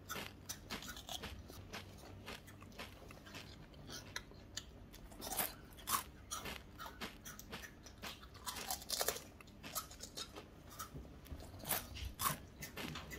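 Crispy chips being bitten and chewed: a scatter of quiet, irregular crunches.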